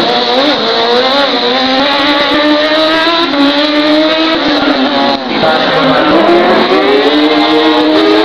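Single-seater race car engine revving up and down repeatedly as the car is driven hard through a cone slalom, with a brief lift off the throttle about five seconds in.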